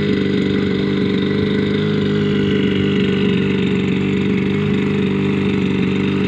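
Firman FFP15 floating water pump's 52 cc two-stroke petrol engine running steadily at a constant speed, driving the pump.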